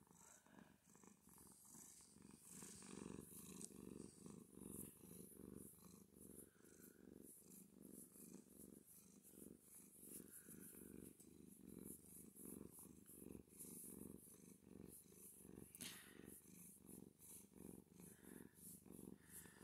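Domestic cat purring faintly and steadily, in a continuous pulsing rumble, while being scratched and petted on the head.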